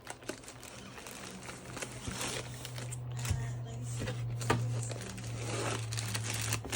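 Plastic packaging crinkling and rustling in the hands, with a few light clicks and knocks; a low steady hum comes in about two seconds in.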